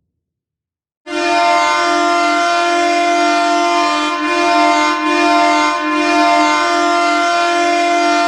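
Hockey goal horn, a big air horn, sounding one long steady blast that starts abruptly about a second in and holds without a break.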